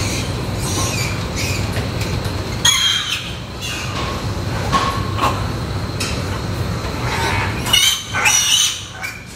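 Weaned piglets squealing, loudly about three seconds in and again near the end as one is lifted, with shorter calls between, over a steady low hum.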